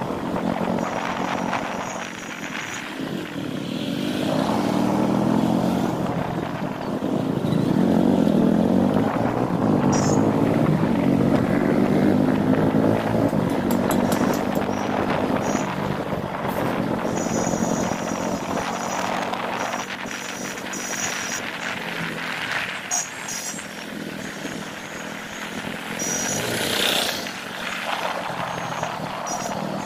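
Motorcycle engine running on the move, its pitch rising and falling as the bike speeds up and eases off, with wind and road noise from the ride.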